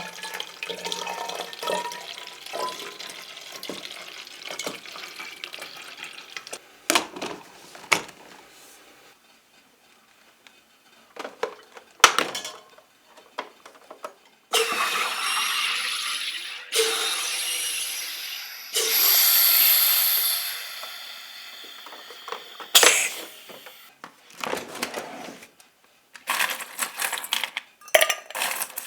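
Kitchen work sounds: water running in spells, with scattered knocks and clinks of dishes and utensils.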